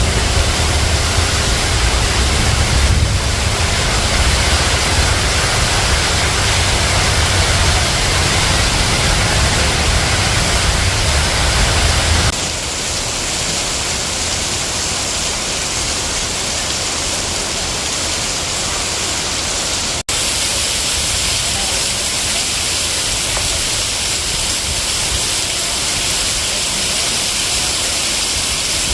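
Heavy rain pouring down as a loud, steady hiss. A deep rumble underneath stops abruptly about twelve seconds in, where the audio cuts. There is a split-second gap a little past the middle.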